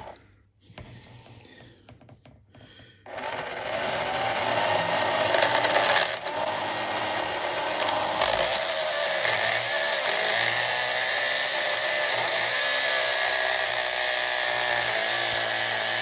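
A slot car's small electric motor spins the plastic rear wheel while a knife blade is held against it, shaving the wheel true. From about three seconds in there is a steady whine with a rasping scrape of the cutting blade on the turning plastic.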